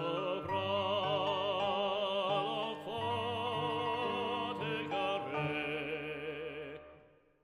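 Background music: a classical, operatic-style singing voice with strong vibrato over a steady accompaniment, fading out near the end.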